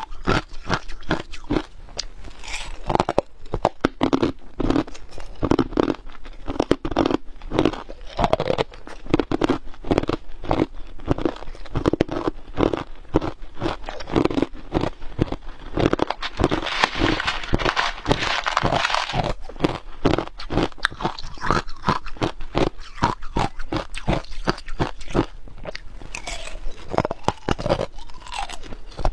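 Small hard ice cubes crunched and chewed between the teeth: a fast, continuous run of sharp cracks, with a denser stretch of crunching about midway.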